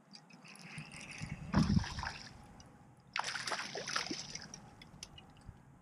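A hooked bass splashing at the pond's surface as it is reeled in to the bank, in two bursts of splashing, the second starting about three seconds in and lasting about a second.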